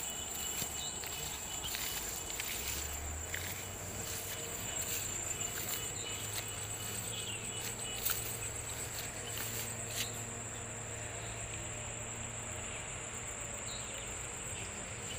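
Insects chirring in one continuous high-pitched, finely pulsing buzz, with the rustle of footsteps through dry grass and a couple of sharp clicks near the middle.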